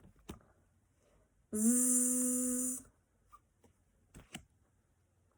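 A voice holds a long buzzing 'zzz' phonics sound for just over a second, steady in pitch. A few faint clicks fall before and after it.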